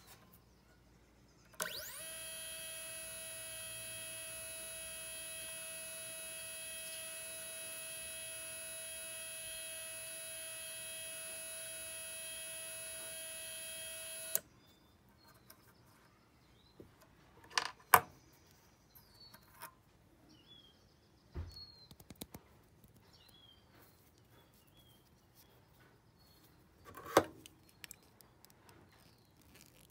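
Motor of a coil-winding jig whining at a steady high pitch for about thirteen seconds while copper magnet wire winds onto the mandrel. The whine rises briefly as it starts and cuts off suddenly. Afterwards come a few sharp clicks and light handling as the wound coil is taken off.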